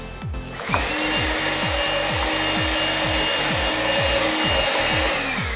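An electric power tool's motor running steadily under load, slowing briefly near the end and then starting up again, over electronic backing music with a steady kick-drum beat.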